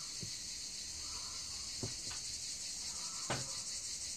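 A steady, high-pitched insect chorus throughout, with a few faint clicks from a crimp sleeve and fishing line being handled at the bench.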